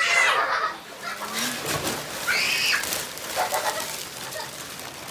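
A metal spatula stirring and scraping in a large wok of broth as noodles are added, with a few short high-pitched calls in the background.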